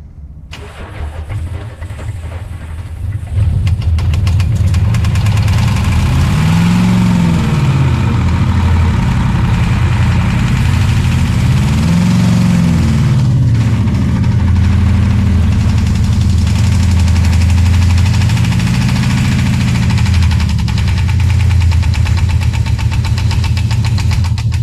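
Ford 7.3-litre V8 diesel engine running with a knocking diesel clatter, growing louder over the first few seconds and then running steadily, its engine speed rising and falling about three times.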